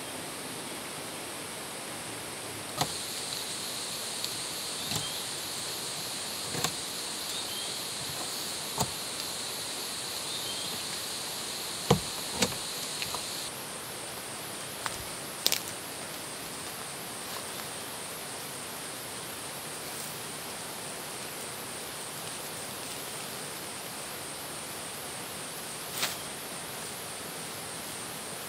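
Steady high, pulsing buzz of forest insects, with a second, lower insect buzz joining about 3 s in and cutting off suddenly about halfway through. Under it is an even hiss of light rain beginning to fall. Scattered snaps and knocks come from branches and undergrowth being handled.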